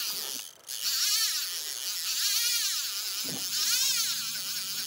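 Fly reel's drag whining as a hooked carp runs and pulls line off the spool, the pitch rising and falling with the speed of the run. It breaks off briefly about half a second in.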